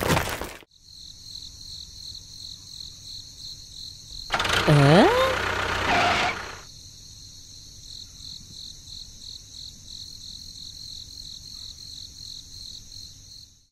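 Crickets chirring in a steady, evenly pulsing high trill. About four and a half seconds in, a louder sound lasting about two seconds breaks in, carrying a call that rises steeply in pitch. A short knock sounds at the very start.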